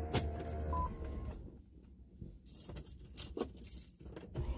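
Inside the cabin of a 2003 Infiniti M45, its V8 idling low, with a short electronic beep about a second in and a few sharp clicks and knocks from handling in the car.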